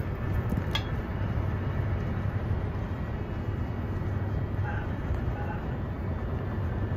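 Steady low rumble inside a cable car gondola travelling along its rope, with a single light click just under a second in.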